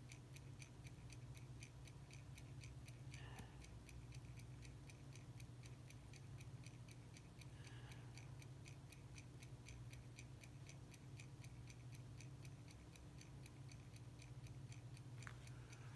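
Faint, rapid, even ticking of a running Swiss Medana mechanical watch movement, its balance beating, over a low steady hum.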